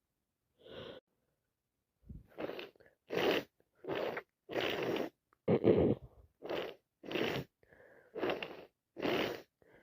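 A woman with a head cold sneezing in a rapid fit: about nine short sneezes in quick succession, starting about two seconds in.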